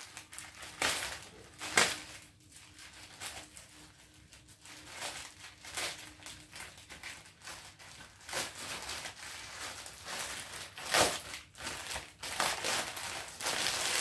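Plastic courier mailer being opened by hand, crinkling and crackling irregularly. There are sharper crackles about a second in, near two seconds and around eleven seconds, and the crinkling gets busier in the second half as the shirt's clear plastic packet is drawn out.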